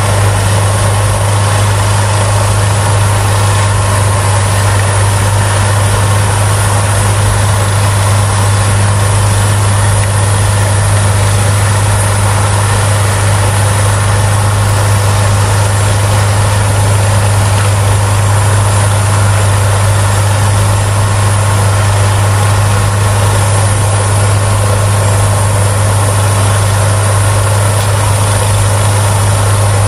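Peterson mobile wood chipper running at a steady load, a loud even machine drone with a strong low hum under a dense rush of noise from the drum and the chips blowing out of the spout.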